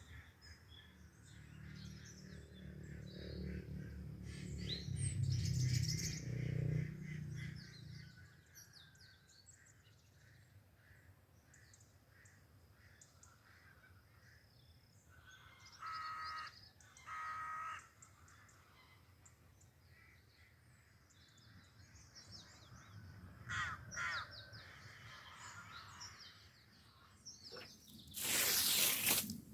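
Birds calling outdoors: two short harsh calls about halfway through, over scattered small-bird chirps. A low rumble fills the first several seconds, and a brief loud rushing noise comes near the end.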